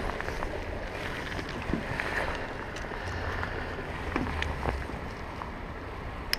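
Wind buffeting the microphone over lapping water, with scattered small clicks and splashes as a small hooked pike thrashes at the surface and is clamped with a lip gripper.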